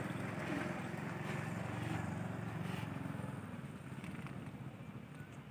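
A motor vehicle's engine running with a low pulsing rumble, fading away over the last couple of seconds.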